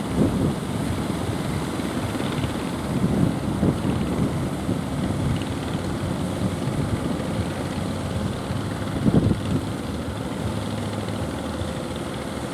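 Fishing boat's engine running steadily with a low, chopping drone, with a brief louder surge about nine seconds in.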